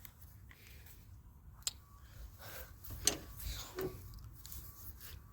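Faint scattered clicks and rustles of handling, with one sharper click about a second and a half in and another about three seconds in.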